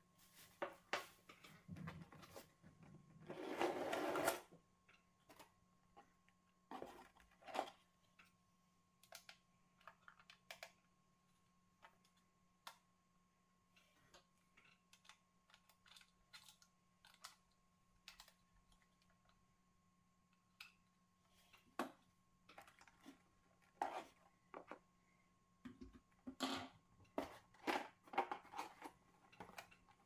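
Handling noises from unpacking a toy RC bulldozer: scattered clicks and taps of plastic parts and cardboard, with a louder rustle lasting about a second some three seconds in and a busier run of clicks near the end.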